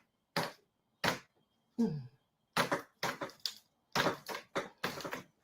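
Wooden closet creaking and cracking in a series of short bursts as it is rocked back and forth to work its joints loose, the bursts coming closer together in the second half.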